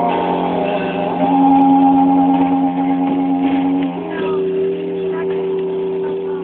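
Didgeridoo holding one steady low drone while its overtones shift, the sound's colour changing about a second in and again about four seconds in.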